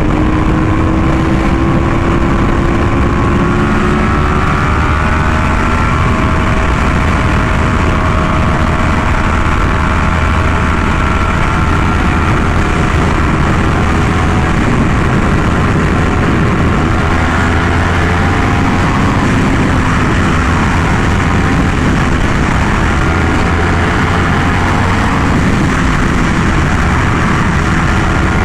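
Yamaha R1M's crossplane inline-four running through an SC Project exhaust while cruising, the engine pitch slowly rising and falling, over a steady low rumble of riding noise.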